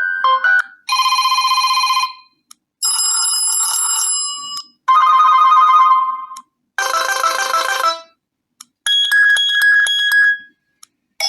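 ASUS Zenfone Max M2 ZB633KL preset ringtones and alert tones played one after another from the phone's speaker: five short chiming melodies of about one to one and a half seconds each, with brief silences between them, and the next one starting near the end.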